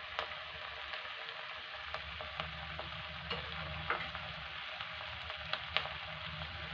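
Diced onion, green capsicum, carrot and tomato sizzling in a pan while being stirred, a wooden spatula scraping and knocking against the pan now and then.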